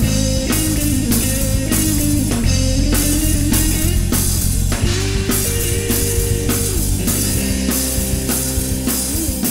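Instrumental break of a rock-cumbia song: drum kit keeping a steady beat under bass and electric guitar.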